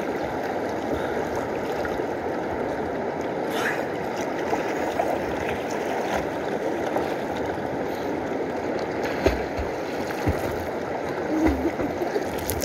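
A shallow, fast river rushing steadily over rapids, with occasional splashing as someone bathes in it and a few dull thumps in the second half.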